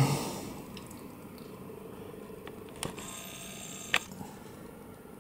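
Quiet room tone with a faint steady hum and two small sharp clicks, about three and four seconds in.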